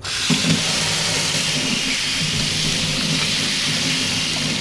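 Water from a lever tap turned on and running steadily into a stainless steel sink, splashing over soapy hands being rinsed. The rush of water starts suddenly at the very beginning.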